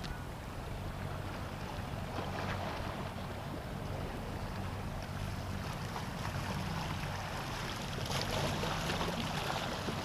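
Sea water washing and splashing, swelling a little about two seconds in and again near the end, over a low steady engine hum.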